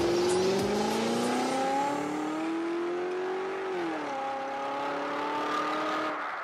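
Car engine sound effect accelerating with a steadily rising pitch. About four seconds in the pitch drops sharply, like a gear change, then it pulls on again.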